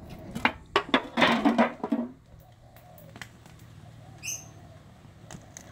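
A small lighter-fluid fire burning on a smartphone, crackling with scattered sharp pops. In the first two seconds a cluster of knocks leads into a louder noisy burst lasting about a second.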